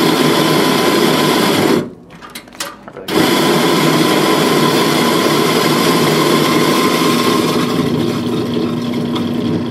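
Commercial bulk coffee grinder grinding beans straight into a flat-bottom paper filter: a loud, steady motor whir with a hum in it. It stops about two seconds in and starts again about a second later.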